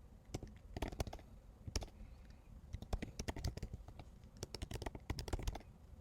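Computer keyboard typing: irregular runs of key clicks, with a quick flurry in the second half.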